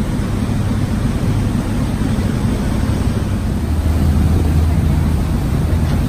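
Passenger ferry's engines running steadily at cruising speed, a continuous low drone under the rush of water churned up in the wake.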